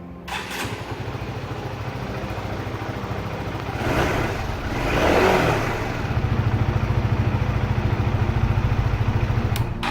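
Honda CBR150R single-cylinder engine running at idle on a freshly fitted NGK CR8EIX iridium spark plug. It is revved briefly about four seconds in, then settles back to an even idle.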